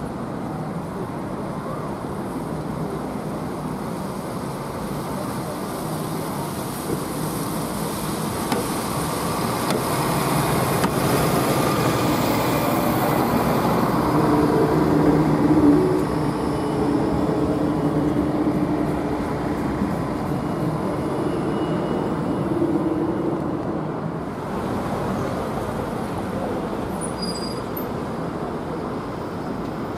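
Seven-section Flexity low-floor tram approaching and passing close by on city street track, its running noise building to a peak about halfway through, with a few steady low tones as it goes past, then falling away. After a cut near the end, general street traffic.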